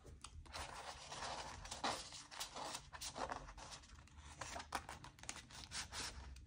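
Dollar bills and a cash envelope being handled: faint, quick, irregular rustling and crinkling of paper money.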